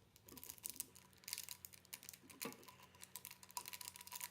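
Plastic powder-mix packet crinkling and crackling as it is handled, a quick irregular run of small clicks.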